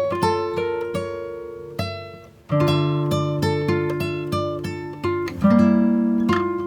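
Acoustic guitar music, notes plucked one after another and ringing out, with a short drop about two seconds in before a new chord is struck.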